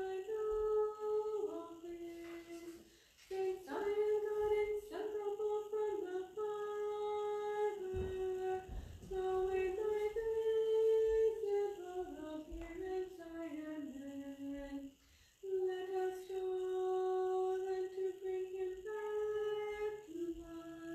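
A woman's solo voice chanting unaccompanied Orthodox Vespers hymnody, holding long notes that step up and down within a narrow range, with two short pauses for breath.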